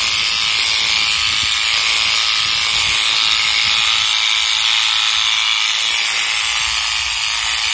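Corded electric shearing clippers running steadily as they cut through a dog's thick coat, a continuous high-pitched mechanical hiss.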